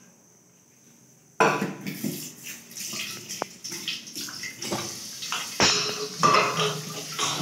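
Steel spatula stirring chickpea curry in a metal kadai: scraping and clinking against the pan with liquid sloshing, starting suddenly about a second and a half in after a quiet start, with a few sharp knocks.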